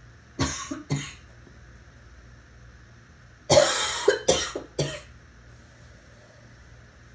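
A person coughing: two short coughs, then a quick fit of three coughs in a row about three seconds later.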